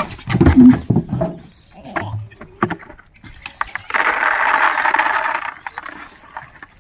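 A large plastic tub is handled and set down with heavy thumps and knocks about a second in. About four seconds in, dry food is poured from a plastic bag into a plastic tub, rattling steadily for about a second and a half.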